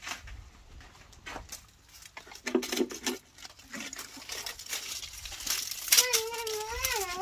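Dry sticks and charcoal being handled at an open wood fire, with scattered light clicks and crackles. About six seconds in comes a wavering high-pitched call lasting just over a second, the loudest sound here.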